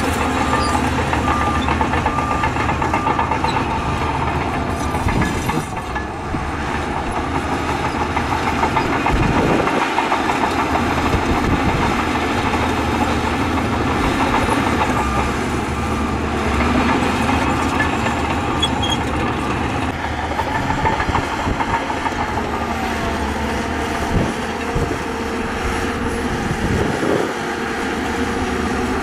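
Crawler bulldozer working: its diesel engine running steadily under load with the steel tracks clanking, and a couple of low thuds, one about a third of the way in and one near the end.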